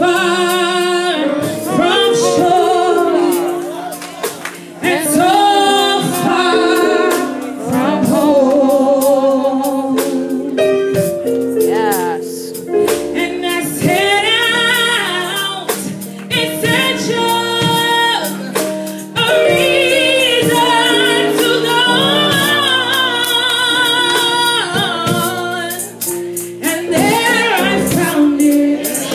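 A woman singing a gospel song into a microphone, her voice amplified through loudspeakers, with long held and sliding notes.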